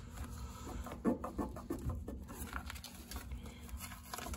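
Masking tape being peeled back and pressed down on a metal pipe, crinkling and rustling, with a few short squeaks about a second in.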